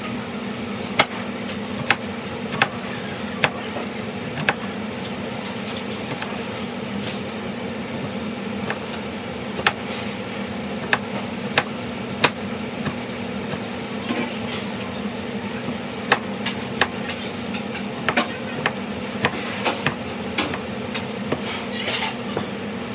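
Knife knocking on a cutting board in sharp, irregular single strikes while lemons are cut, more often in the last few seconds, over a steady low hum.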